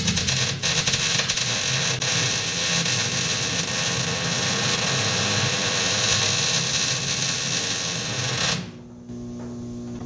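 MIG welder arc crackling steadily for about eight and a half seconds while filling a plug weld in sheet steel, then cutting off abruptly when the trigger is released.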